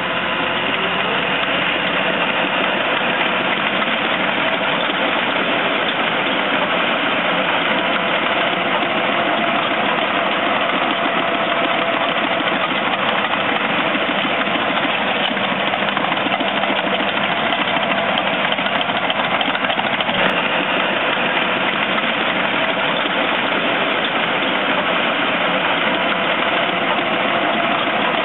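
Caterpillar D6K crawler dozer's diesel engine running steadily as the machine pushes earth with its blade, an even mechanical drone with no change in pitch or level.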